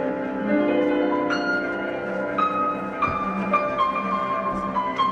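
Instrumental music: a slow melody of struck notes that ring on, over held lower tones.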